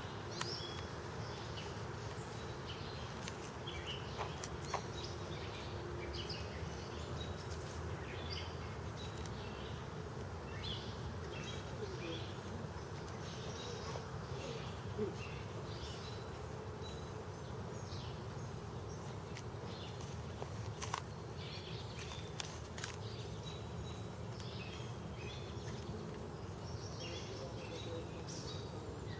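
Steady low buzzing of honeybees in the air around a Warre hive as a package of bees is installed, with scattered short bird chirps throughout.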